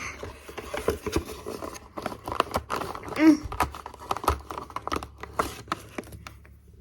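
Rustling, crinkling and small irregular clicks of a toy kit's plastic packaging being handled as sticky pieces are pulled out of it.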